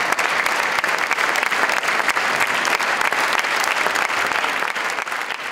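Large theatre audience applauding: dense, steady clapping that begins to fade near the end.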